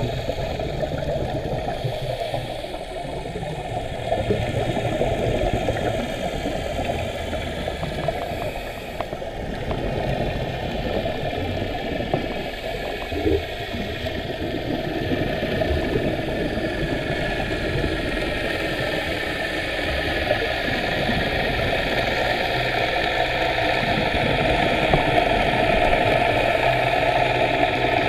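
Engine drone heard underwater, steady, with a whine that slowly rises in pitch and grows louder through the second half.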